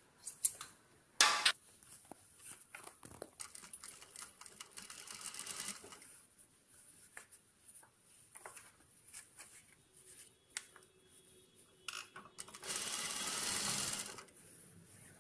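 Juki industrial lockstitch sewing machine stitching a shirt part in short runs, the longest and loudest about a second and a half near the end. A sharp click about a second in, with small ticks of scissors and fabric handling between the runs.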